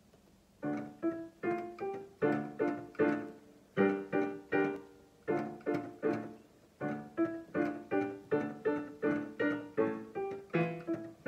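Yamaha digital piano playing a melody in chords. The notes are struck in a steady beat of about two to three a second, in short phrases with brief breaks, starting just under a second in.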